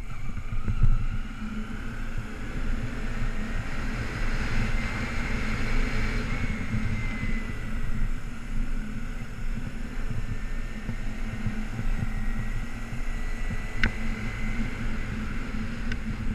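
2008 Kawasaki Ninja 250R's parallel-twin engine running at low speed while riding, heard from a helmet-mounted camera; its pitch climbs over the first few seconds and then slowly drops. Two sharp clicks near the end.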